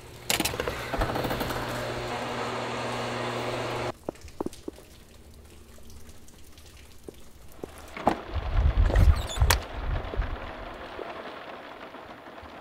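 Rain falling, loud and dense for the first four seconds and then cutting off abruptly to a quieter patter. A cluster of loud low thumps comes near the middle.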